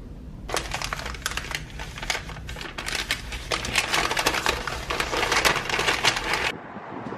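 Brown kraft paper bag being handled and crinkled: a dense, irregular run of crackles that stops suddenly near the end.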